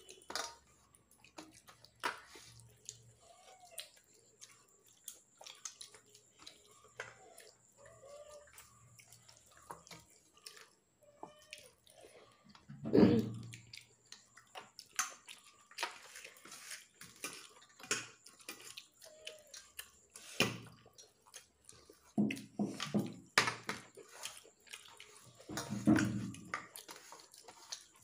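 Fingers mixing and scooping rice and curry on a steel plate: wet squishing with many small clicks of fingers and food against the metal, together with chewing and mouth sounds. A few short, louder low sounds stand out around the middle and near the end.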